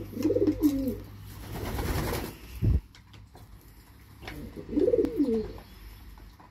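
Racing pigeon cooing, two bubbling phrases that rise and fall in pitch: one at the start and another about four and a half seconds in. Between them come a brief swell of rustling noise and a short dull thump.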